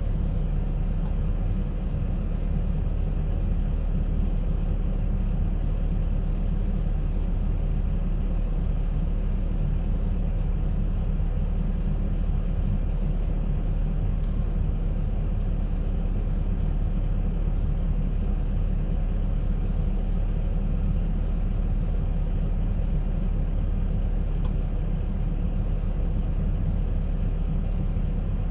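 Concrete mixer running: a steady low mechanical rumble with a constant hum that does not change.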